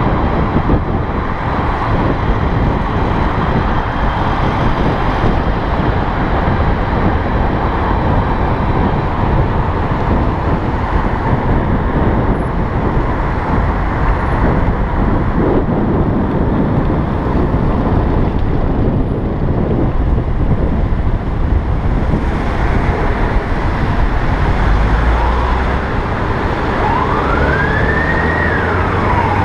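Steady, loud rush of wind and road traffic noise heard from a moving electric bike. Near the end a siren wail rises and falls.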